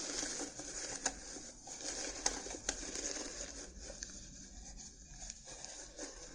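Stiff paper cards being handled: a continuous dry, crackly rustle with a few sharp snaps, the loudest about a second in and twice between two and three seconds in.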